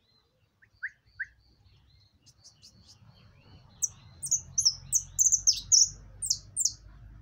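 Caged grassland yellow-finch (misto) singing: two short rising notes about a second in, a string of thin high chips, then from about four seconds a fast run of loud, high notes that sweep downward.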